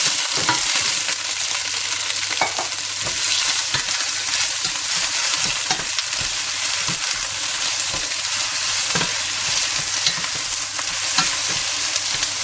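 Prawn heads sizzling as they brown in hot oil in a stainless steel pot, stirred with a wooden spatula that knocks and scrapes against the pot now and then.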